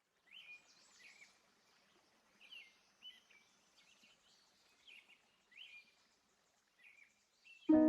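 Faint birdsong: a string of short chirps, one every second or so, over a light background hiss. Loud piano-like music starts suddenly just before the end.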